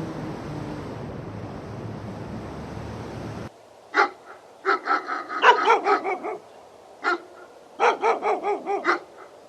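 A steady rushing noise runs on and cuts off about a third of the way in. Then a dog barks: a single bark, a quick run of barks, another single bark, and a second quick run near the end.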